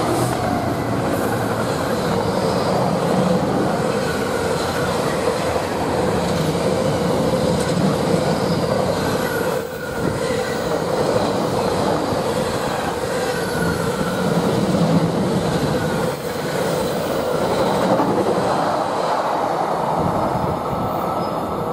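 Freightliner Class 66 diesel locomotive (EMD two-stroke V12) passing close, followed by a long container freight train rolling by: a steady rumble of wagon wheels on the rails with faint wheel squeal now and then.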